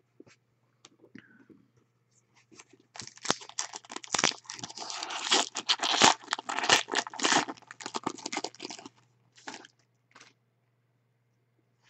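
A foil trading-card pack being torn open and crinkled by hand. It starts about three seconds in as a dense run of crackling and tearing lasting several seconds, then trails off into a few light clicks.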